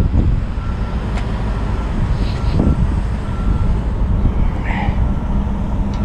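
Semi truck's diesel engine idling with a steady low rumble, with a few brief hiss-like handling noises.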